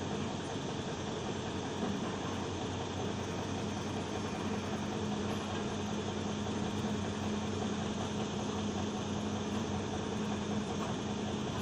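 A heavy engine running steadily at a constant speed, an even hum with no change in pitch.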